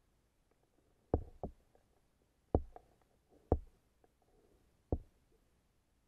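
Sharp knocks heard underwater, about five at irregular spacing, some in quick pairs, with near quiet between them.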